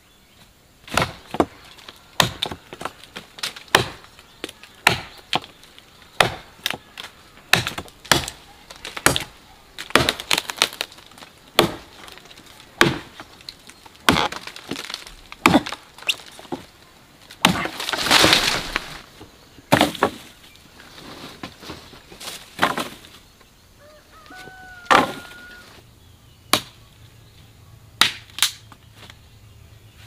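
Repeated chopping blows with a blade, sharp strokes at an uneven pace of roughly one a second, with one longer, noisier stroke a little past the middle.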